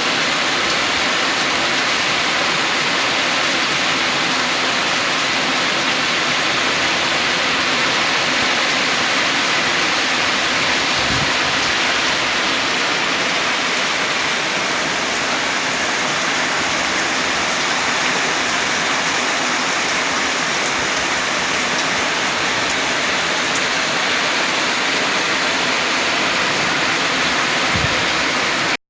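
Heavy rain and rushing, swollen river water: a loud, steady hiss of water with no let-up, cutting off abruptly near the end.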